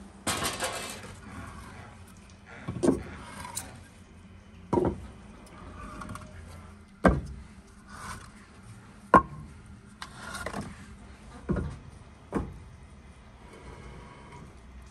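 Split firewood logs being knocked and set down on the floor of a brick wood-fired oven while being stacked for a fire: a series of hollow wooden knocks, about eight, one every second or two, with a scraping rustle just after the start.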